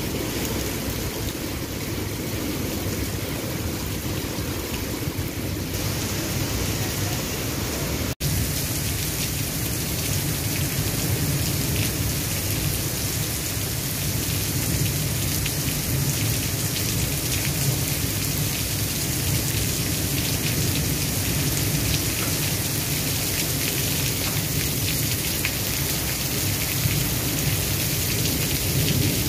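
Heavy rain pouring steadily in a thunderstorm, with a deep rumble of thunder under it. The sound cuts out for an instant about eight seconds in.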